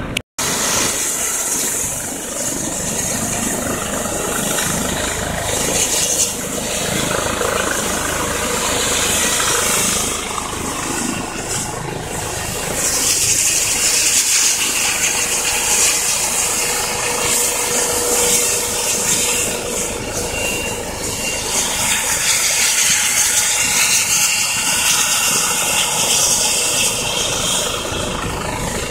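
Airbus EC-135P2+ helicopter running on its helipad: a steady turbine hiss and whine with rotor noise.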